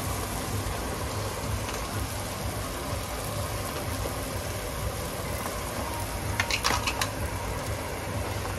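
Spiced masala sizzling as it fries in oil in a pan, a steady hiss over a low rumble, with a short run of sharp clicks about six and a half seconds in.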